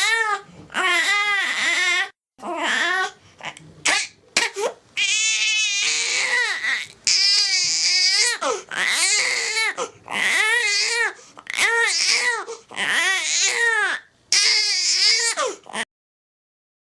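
Baby crying: a string of high-pitched wailing cries, each about a second long with short catches of breath between, stopping about a second before the end.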